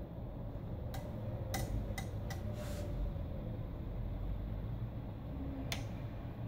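Sharp clicks and taps of metal feeding tongs against the terrarium's glass front and frame: four quick clicks about a second in, a short scrape, then one more click near the end, over a steady low rumble.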